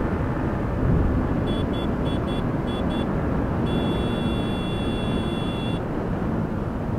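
Wind rushing over the microphone, with a Yamaha MT-15's 155 cc single-cylinder engine running in sixth gear at about 100 km/h. About a second and a half in come six quick short beeps, then one long beep lasting about two seconds.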